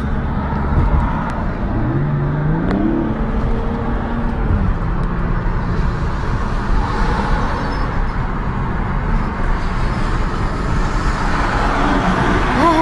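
Steady engine and road noise heard inside a moving car as it draws alongside a heavy truck. About a second in, an engine climbs in pitch as it accelerates, holds, then eases off at around four and a half seconds. A wavering tone comes in near the end.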